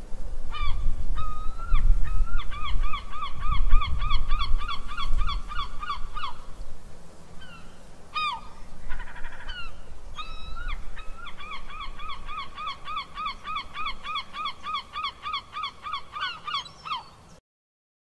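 Seabirds calling in two long runs of rapid, evenly repeated ringing calls, several a second, with a few single calls between the runs. Low wind rumble on the microphone during the first half.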